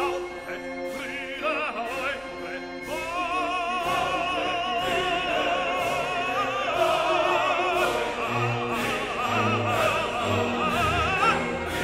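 Background music: operatic singing with orchestra, the voice wavering with strong vibrato.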